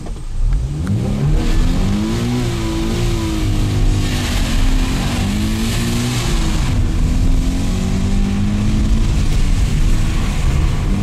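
Toyota 86's flat-four boxer engine revving hard as the car accelerates through the gears, heard from inside the cabin. The pitch climbs, falls back at each upshift and climbs again, then holds steady near the end.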